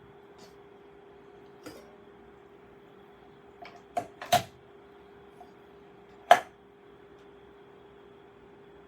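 A few sharp clicks and knocks of hard objects being handled, a cluster about four seconds in and the loudest single knock about six seconds in, over a faint steady hum. The grain mill is not running.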